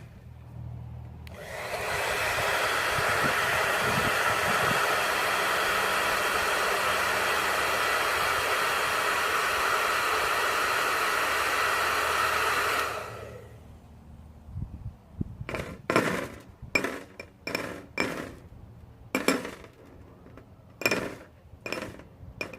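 Handheld blow dryer switched on about a second and a half in, running steadily for about eleven seconds and then switched off. Near the end come about a dozen sharp, irregular taps.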